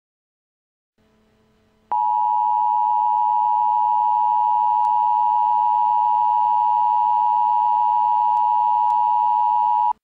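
Emergency Alert System attention tone: a steady, loud electronic tone starting about two seconds in, held for about eight seconds and cutting off abruptly. It announces that a tornado warning message is about to follow.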